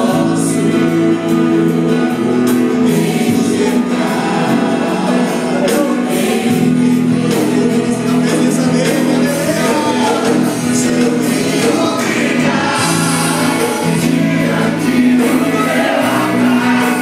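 Live gospel worship music: a group of singers with instrumental accompaniment, over sustained steady chords.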